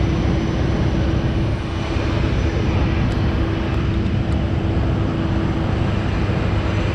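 ATR turboprop airliner's engine running on the ground close by: a loud, steady rumble and rush with one steady whine held over it.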